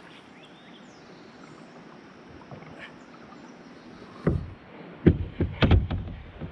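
Water splashing in a few sharp bursts, one about four seconds in and a quick cluster a second later, as a hooked fish is brought in.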